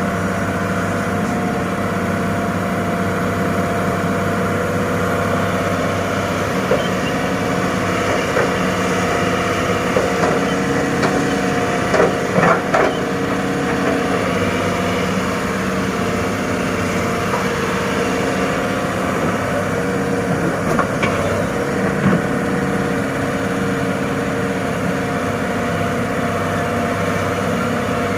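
Heavy diesel engine running at a steady pitch, with scattered knocks and clatters of sand and stone being dug and loaded. The clatters are loudest about twelve to thirteen seconds in and come again briefly near the twenty-second mark.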